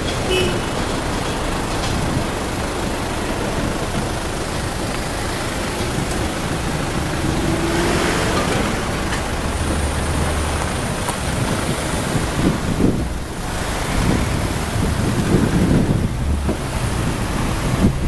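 Road traffic driving over a railway level crossing: cars and a bus pulling away one after another, with engine and tyre noise rising and falling as each vehicle passes.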